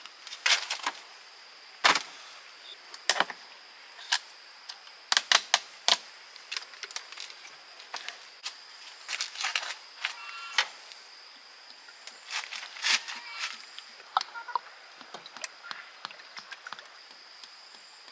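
Irregular clinks and knocks of metal tools and gearbox parts being handled, some with a brief metallic ring, over a faint steady high-pitched whine.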